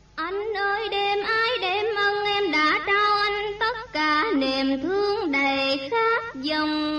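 Vietnamese tân cổ (cải lương) singing: a solo voice sings long, ornamented phrases with wide pitch glides and vibrato. It pauses briefly about four seconds in and again near six seconds.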